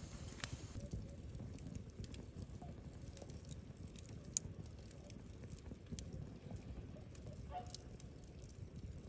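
Wood campfire crackling, with scattered small pops over a low steady rumble.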